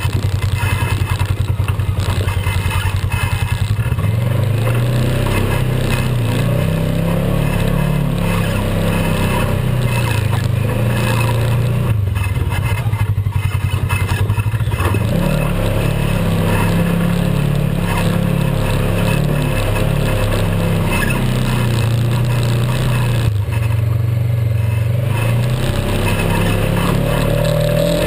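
Polaris RZR XP 900 side-by-side's 875 cc parallel-twin engine running on and off the throttle over rough trail, its pitch stepping up and down. About four seconds in, a thin steady whine rises above it.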